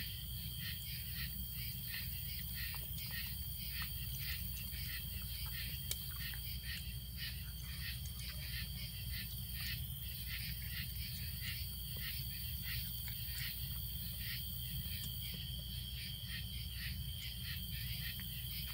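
Night insects chirping in a steady, even rhythm of about two to three chirps a second over a continuous high, thin trill, with a steady low hum beneath.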